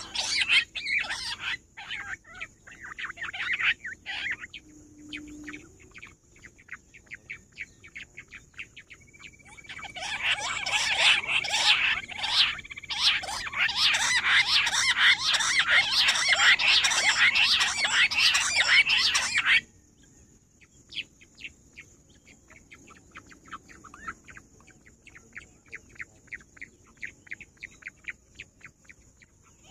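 Rock bush quail calling: rapid trains of short, high chirping notes, sparse at first, then a loud, dense chorus about a third of the way in that stops abruptly, followed by fainter, scattered notes.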